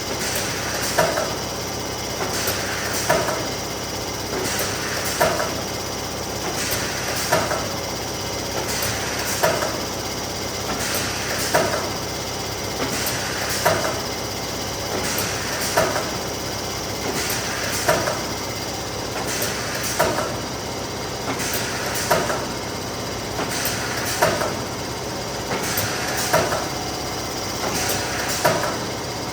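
Neoram 540 hot laminator running steadily, with a regular clack about every two seconds as sheets feed through for hot lamination.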